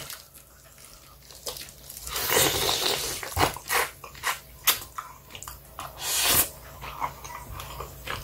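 Eating sounds: a plastic spoon clicking and scraping against a plate as rice is scooped, with two longer wet mouth noises of eating spicy marinated crab and rice, about two and six seconds in.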